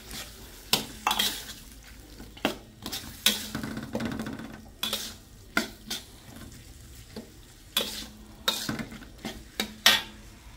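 Metal spatula scraping and clinking irregularly against a steel wok while stirring a frying sardine and potato mixture, with a low sizzle underneath. The stirring stops shortly before the end.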